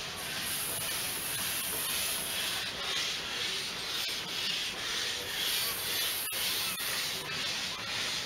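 Narrow-gauge steam locomotive hissing steam as it moves slowly forward, the hiss swelling and easing every second or so, with a few light clicks.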